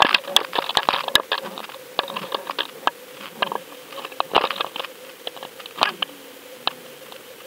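Rapid sharp clicks and crackles picked up through an underwater camera housing as a fish attacks the bait on the line. They are dense at first and thin to scattered ticks, over a faint steady hum.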